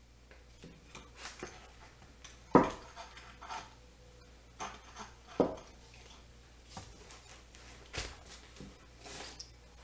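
Hammer tapping a nail into a wooden ladder rung to make a guide hole for an eye hook. Lighter taps run between three harder strikes, the loudest about two and a half seconds in.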